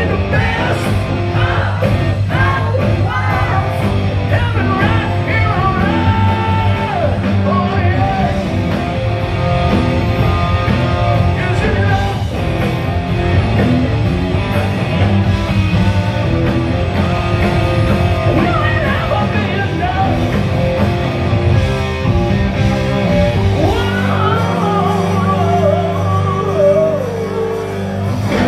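Live rock band playing: lead vocals over electric guitars, bass guitar and drums, heard from within the audience.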